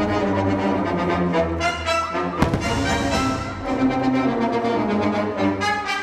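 Orchestral music with brass playing sustained notes, and a single sharp firework bang about two and a half seconds in.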